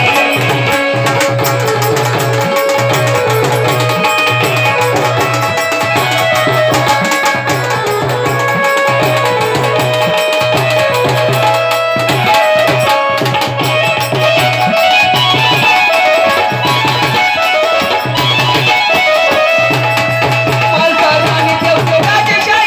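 Instrumental music: tabla-type hand drums keeping a steady beat under a melody of held notes, with no singing.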